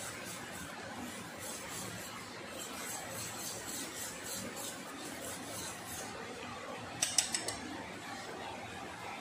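Wire whisk beating a thin egg-and-milk batter in a stainless steel bowl, a soft rhythmic swishing of about three strokes a second that stops about six seconds in. About a second later, four or five quick sharp taps of the whisk against the metal bowl.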